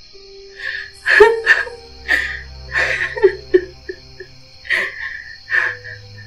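A young woman whimpering and groaning in pain, a string of short strained cries and gasping breaths, over a faint steady music drone.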